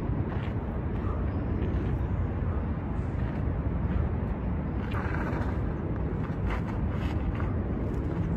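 Steady low outdoor rumble, with a few short scuffs of shoes on gravel.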